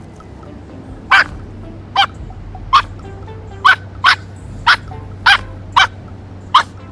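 Jack Russell terrier puppy giving about nine short, sharp, high-pitched yips at uneven intervals while digging in the lawn. The yips are the sound of a frustrated dog focused on something it can't reach.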